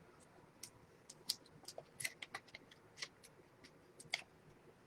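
Light, irregular clicks and ticks of trading cards being handled: cards flicked and slid through the fingers and into sleeves and holders.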